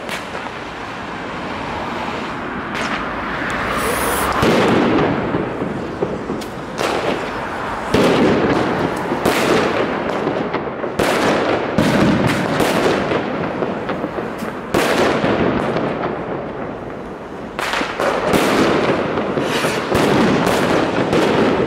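Fireworks going off: a long string of sharp bangs, packed more tightly near the end, over a continuous din of crackling and rumbling.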